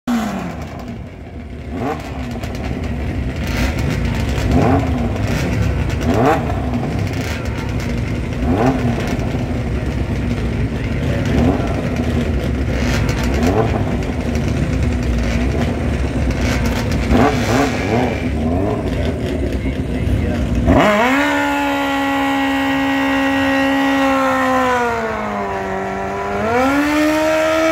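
Superbike engine idling, with throttle blips rising in pitch every couple of seconds. About 21 seconds in it jumps to a steady high rev held for a burnout; near the end the pitch sags briefly and then climbs higher.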